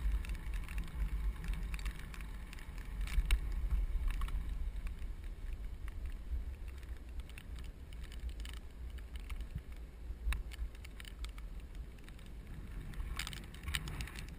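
Wind rumbling over the microphone of a bicycle-mounted camera while riding downhill on a paved road, strongest in the first few seconds. Scattered light clicks and rattles from the bicycle come through, with a cluster of them near the end.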